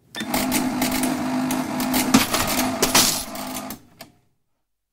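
Electronic NCR cash register's receipt printer running with a steady buzz and rapid sharp clicks, stopping abruptly after nearly four seconds, followed by a single small tick.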